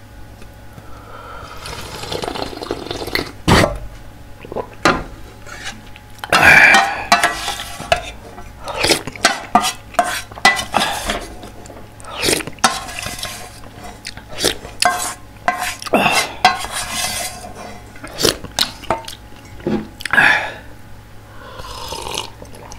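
Close-miked slurping and gulping of ramyeon broth, drunk straight from a thin aluminum ramyeon pot and from a wooden spoon. Short clicks and knocks come from the spoon against the metal pot between several long slurps.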